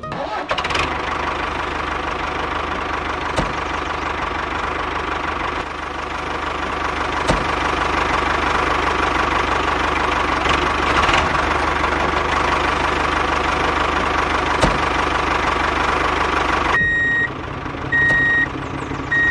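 Tractor engine running steadily at idle, a little louder from about six seconds in. Near the end the engine sound drops and three short high beeps sound.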